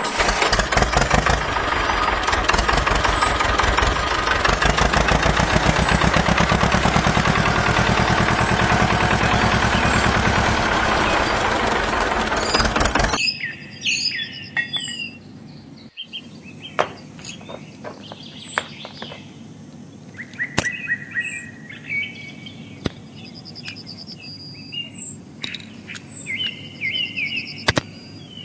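A toy tractor's motor running loud with a fast, even buzz, stopping suddenly a little under halfway through. After that, birds chirp and there are a few sharp taps.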